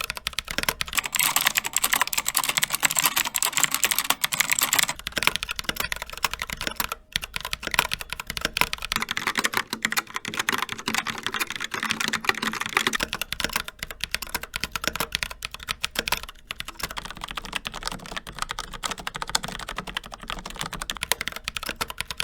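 Fast continuous typing on a series of mechanical keyboards in turn: briefly a Melgeek Pixel with Kailh Pixel T switches, then a Rapture X-Ray with clicky Outemu Blue switches giving the sharpest clatter, then a Logitech Pop Keys with TTC Brown switches, then a Logitech MX Mechanical with Kailh Brown switches.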